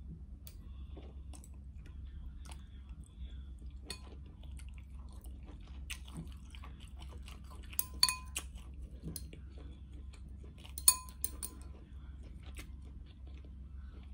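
Close-up chewing and slurping of noodles with small wet mouth clicks, and twice, about eight and eleven seconds in, a utensil strikes the glass bowl with a short ringing clink.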